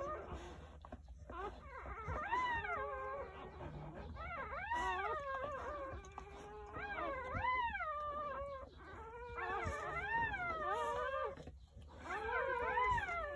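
Newborn Jindo puppies crying: several high whining calls at once, each rising and falling in pitch, in bouts with brief pauses.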